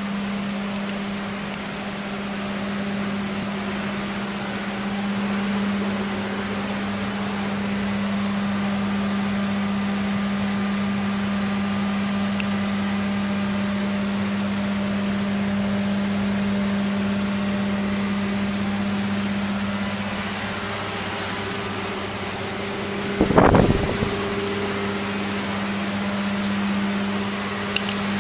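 1947 Dodge's flathead straight-six engine running steadily with an even hum, the engine whose loud knock was traced to a harmonic damper with its rubber separated. About three quarters of the way through comes one short, loud clatter.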